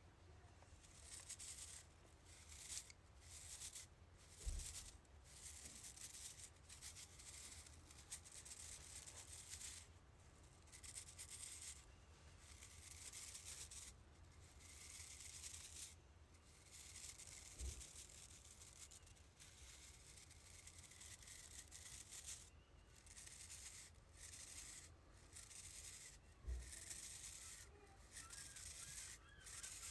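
A brush scrubbing a chair in repeated scratchy back-and-forth strokes, each lasting about a second with short pauses between. Three soft low thumps are heard along the way.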